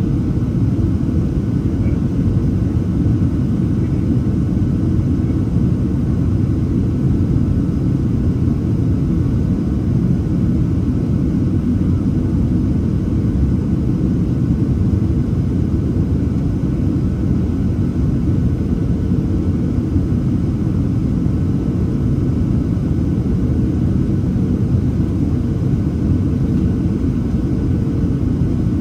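Steady in-flight cabin noise inside a Boeing 737-700: an unbroken low rumble of airflow and the CFM56-7B engines, with a faint steady tone above it.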